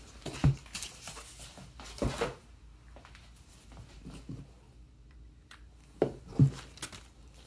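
Cardboard and comic books being handled and set down on a table: a few short knocks and rustles, about half a second in, around two seconds in and twice in quick succession near the end, with quiet between.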